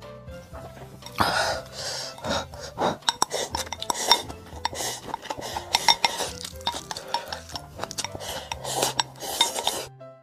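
Utensils clattering against metal and glass bowls: many quick sharp clinks and scrapes that start about a second in and stop suddenly near the end.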